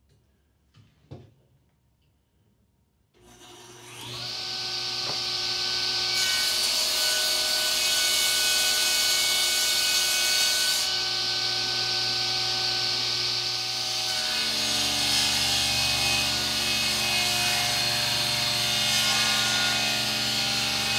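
A couple of faint clicks, then a homemade wooden table saw starts about three seconds in, spins up within a second and runs steadily with a whine while its blade rips boards fed along the fence.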